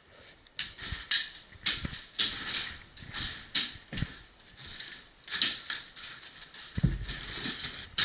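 Irregular crunching footsteps and clattering of gear as a player moves, with a few dull thumps.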